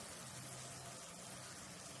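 Mushrooms frying gently in a clay pot, a faint steady sizzling hiss.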